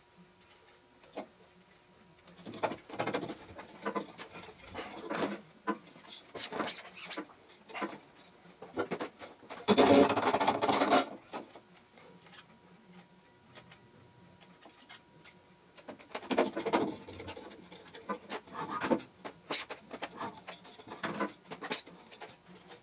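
Hands rubbing and sliding over the mesh and aluminium frames of screens on a manual screen printing press as the screens are lined up. The sound comes in irregular rubbing and scraping bursts with scattered clicks, and the longest, loudest burst comes about ten seconds in.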